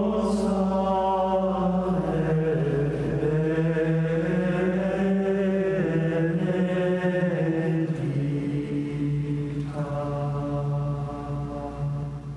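Slow chanted vocal music with long held notes that shift pitch gradually, fading out near the end.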